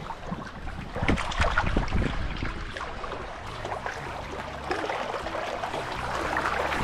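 Wind buffeting the microphone beside a lake, in uneven gusts with a rumbling low end, over water lapping at the shore.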